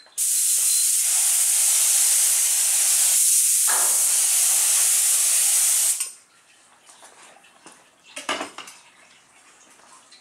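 Compressed-air spray gun spraying Hydrogator activator over the film on a hydrographics dip tank: a loud, steady hiss for about six seconds that stops abruptly. A short knock follows about two seconds later.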